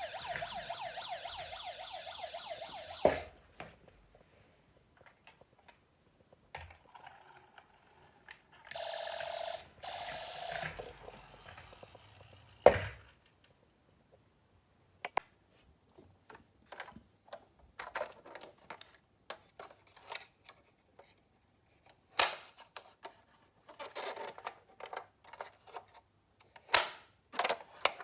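Toy ambulance's wavering siren sound effect, cutting off with a click about three seconds in, followed by a second, shorter siren sound about nine seconds in. A sharp knock follows near the middle, then scattered light clicks and clatter of the plastic miniature cars being handled.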